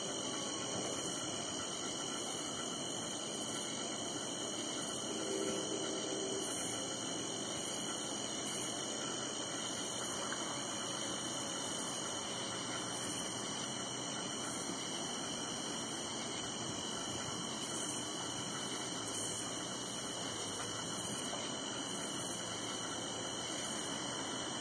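Steady high-pitched insect chorus of a summer evening, such as crickets, with a faint regular pulsing on top. A brief low tone sounds about five seconds in; no thunder is heard.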